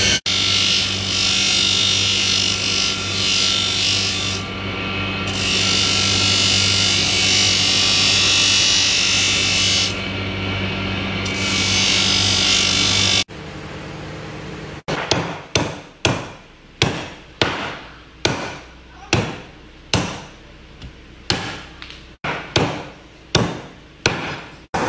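Motor-driven grinding wheel running with a steady hum and a loud high hiss as a cleaver blade is ground on it; the hiss drops out twice briefly as the blade is lifted off. About thirteen seconds in it gives way to a cleaver chopping pork on a chopping board, a long run of sharp even chops about one and a half a second.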